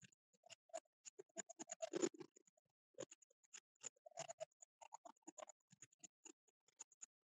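Near silence, broken by faint, irregular clicks and crackles.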